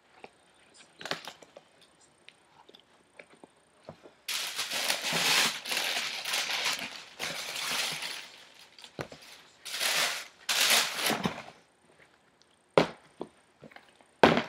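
White tissue paper in a cardboard shoebox rustling and crinkling in several bursts as a sneaker is pulled out of it, followed near the end by two sharp knocks as the shoes are set down on the box.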